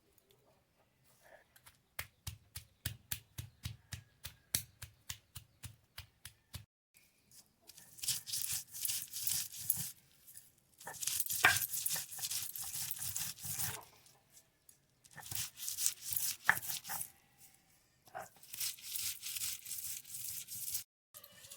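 Food being prepared by hand: a quick run of about twenty sharp chopping strokes, at about four a second, then four bouts of rough scraping or tearing, each lasting two to three seconds.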